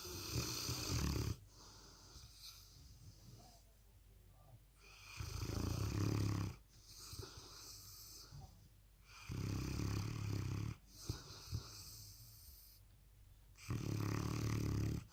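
Sleeping Presa Canario puppy snoring loudly. There are four long snores, each about a second and a half, coming every four seconds or so, with quiet stretches between.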